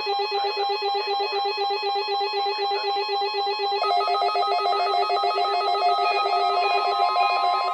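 Weather radio receivers sounding their electronic alert alarms, activated by a weekly test signal: rapid, steady two-tone beeping. A second alarm at a different pitch joins about four seconds in, and a steady tone starts right at the end.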